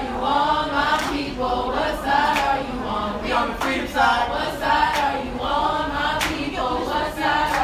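A group of voices singing together in a chant-like song, with sharp claps recurring about once a second.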